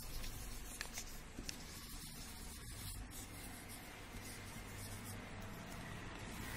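Wax crayon rubbed back and forth over paper laid on leaves, making a leaf rubbing: a steady scratchy rubbing.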